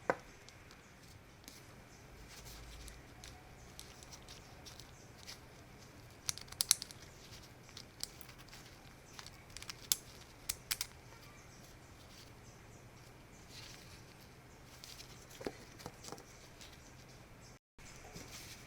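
Sparse light clicks and taps of small hard parts being handled on a workbench, most of them in a cluster through the middle, with a brief scrape a little before the end.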